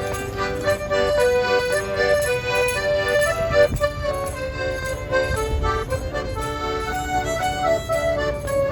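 Accordion music: a traditional-style tune of held reedy notes that change quickly from one to the next.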